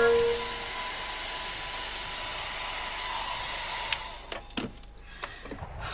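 Hand-held hair dryer blowing steadily, then switched off about four seconds in with a click, followed by a few light knocks as it is handled.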